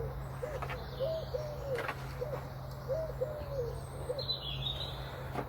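A pigeon cooing: a series of soft, low, arched hoots in loose groups, with a small bird chirping briefly about four seconds in.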